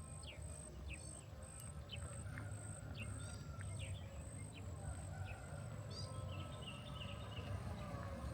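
Forest birds calling: a string of short, quick downward chirps, with a brief warbling phrase about six seconds in. Under them runs a steady low rumble and a faint, high, pulsing tone.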